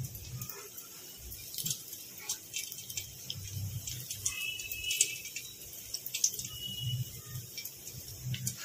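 Hot oil sizzling and crackling in a kadai as methi gota, fenugreek and gram-flour batter fritters, deep-fry, with irregular sharp spits and pops over a steady hiss.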